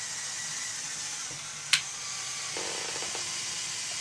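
LEGO Power Functions electric motor running steadily, driving the Technic gearing that slowly lowers the crane's outrigger feet. A sharp click comes a little under two seconds in, and a lower hum joins about halfway through.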